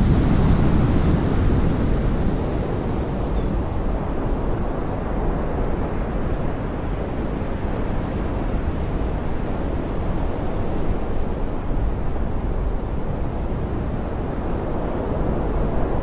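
Steady roar of heavy breaking surf with wind, a little louder in the first couple of seconds and then even.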